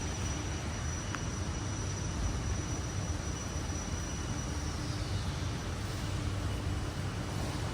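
Steady low mechanical rumble, with a thin high whine that fades out about five seconds in and a faint click about a second in.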